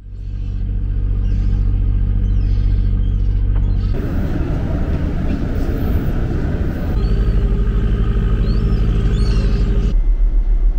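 A car ferry's engine running with a steady deep hum, the sound changing abruptly at about 4, 7 and 10 seconds as shots change. Short gull cries sound over it now and then.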